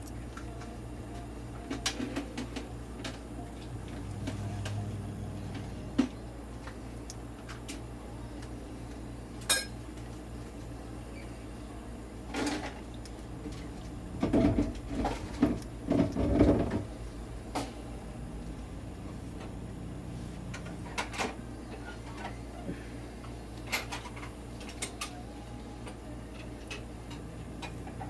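Scattered clicks and knocks, with a cluster of louder clattering about halfway through, over a steady low hum.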